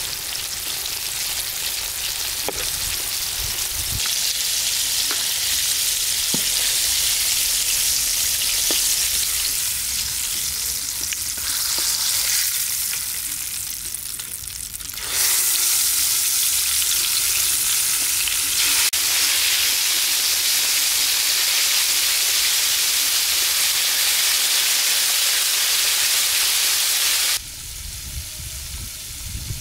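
Chicken drumsticks deep-frying in hot oil in a wok: a steady, dense sizzle of bubbling oil, with a few light clicks in the first several seconds. The sizzle gets louder about halfway through and drops away to a much quieter background near the end.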